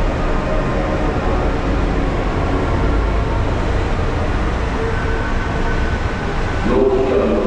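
Steady rumble and hiss of an underground subway platform with a train standing alongside. Near the end a louder pitched sound with several shifting tones starts over the rumble.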